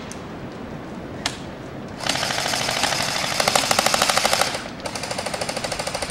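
Airsoft gun firing: a single pop about a second in, then two long full-auto bursts of rapid, even shots, about a dozen a second, the first lasting some two and a half seconds and the second a little over one.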